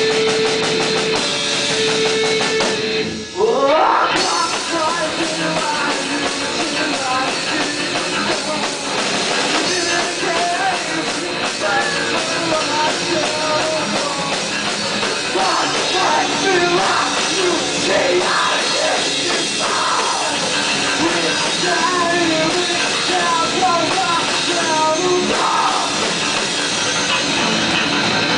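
Live rock band playing alternative metal: distorted electric guitar, bass guitar and a Sonor drum kit. A held note breaks off about three seconds in, and a rising slide leads back into the full band.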